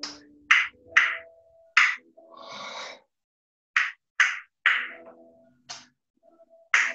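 Percussion-led accompaniment music: sharp slap-like drum hits in a loose, uneven rhythm over faint held low notes.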